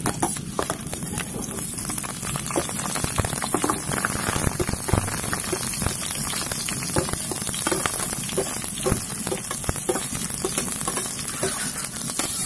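Chopped onions sizzling and crackling in hot oil in a pan as they are tipped in for sautéing: a steady frying hiss with many sharp pops throughout.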